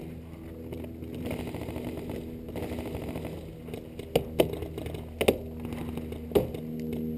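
About five sharp paintball marker shots, singly and in a quick pair, from about four seconds in, over a steady low hum.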